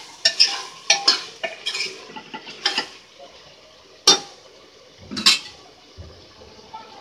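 Metal ladle stirring vegetables as they fry in an aluminium pressure cooker. It clinks and scrapes against the pot several times in the first three seconds, then gives two sharp knocks about four and five seconds in.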